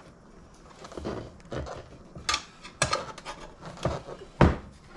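Tire tool knocking and clinking against the wheel rim while the bead of a 3.00-10 mobility scooter tire is worked off, in scattered knocks with the loudest, deepest one near the end.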